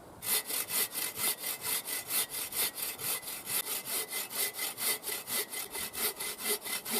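Boreal 21 folding bow saw cutting through a log on a sawhorse, starting just after the beginning with fast, even strokes at about four a second.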